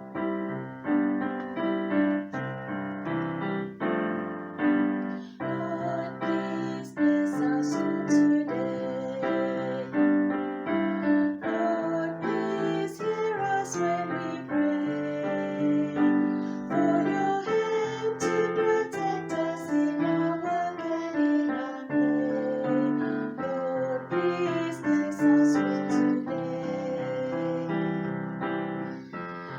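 Piano music: a steady flow of struck notes and chords with a melody line above.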